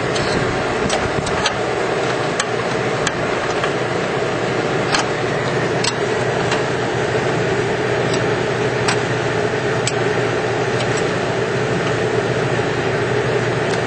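Steady engine-like machine drone throughout, with scattered sharp metal clicks and taps of hand tools and hardware as a nut is worked along a carriage bolt.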